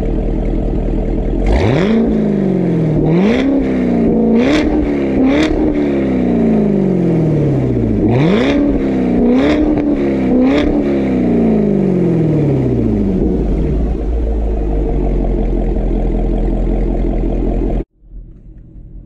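C7 Corvette's 6.2-litre V8 through a Corsa exhaust, idling and revved seven times in quick blips, four then three. Each rev climbs fast and falls back slowly to idle, and the sound cuts off abruptly near the end.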